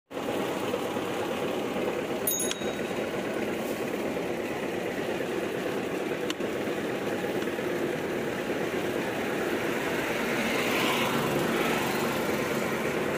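Steady street traffic noise with engines running. A short metallic bell ring comes about two seconds in, and a single sharp click at about six seconds.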